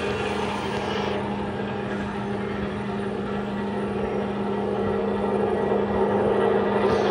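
Industrial agitator with three-bladed wide-blade axial flow turbine impellers running in air on a no-load trial: a steady machine drone from its drive with a constant low hum, growing slightly louder near the end.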